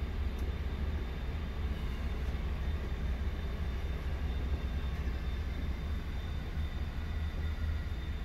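Steady low hum of running refrigeration machinery, with faint high steady tones above it.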